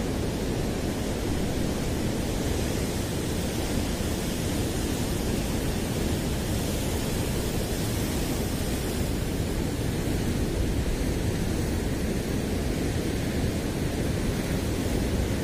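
Continuous noise of heavy sea surf breaking on the rocky shore, steady throughout with no distinct single wave crashes.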